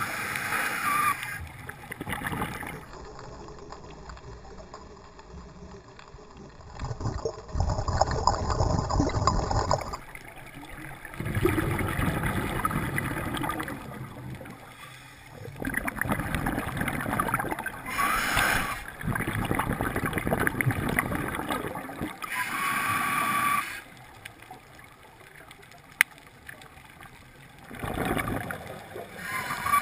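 Scuba diver breathing through a regulator underwater: several long bubbling exhalations, each a few seconds, alternating with short hissing inhalations.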